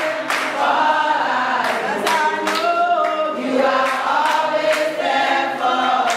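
A group of people singing a song together, with hand claps on the beat.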